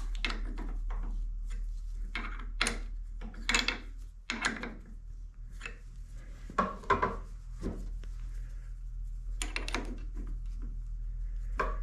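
Scattered metal clicks, knocks and scrapes of a tap being handled and set into a drill press chuck, over a steady low hum.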